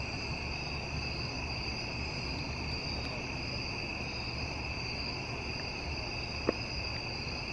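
A steady, high-pitched chorus of crickets over a low background rumble, with one faint tick about six and a half seconds in.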